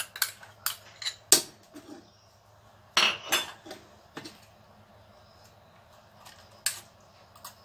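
Spoon clinking and scraping against a strainer and a glass bowl as ground mustard seed paste is pressed through to squeeze out its liquid. Clinks and scrapes come thick in the first few seconds, then only now and then.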